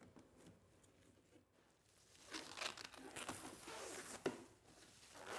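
A cut sheet of extruded acrylic with its blue protective film is handled and slid across the CNC router's spoilboard: faint crackling and scraping of plastic for about two seconds, a sharp click a little after four seconds in, and another short rustle near the end.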